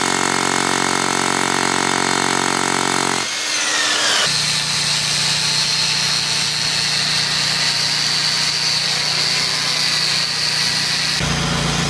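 Pullman Ermator S26 HEPA dust extractor running with a steady motor hum as its floor nozzle picks up concrete debris. About three seconds in the sound changes: after a short falling whine, a tuck-pointing grinder runs with a steady high whine as it cuts mortar from brick joints, its shroud connected to the extractor.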